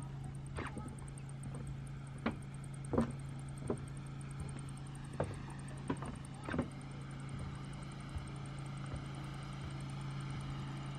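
Footsteps knocking on wooden boardwalk planks, irregular and clustered in the first seven seconds, over a steady low hum.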